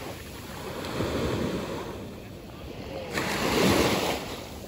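Small waves breaking and washing up the sand at the water's edge, swelling twice, with wind rumbling on the microphone.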